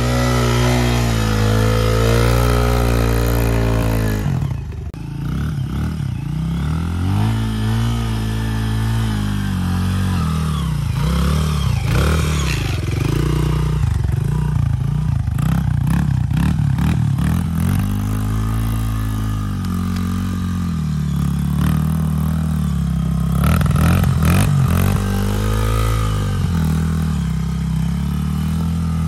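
Small dirt bike engine revving up and down repeatedly as the bike is ridden through thick mud, its pitch rising and falling every second or two, with a brief dip about four seconds in.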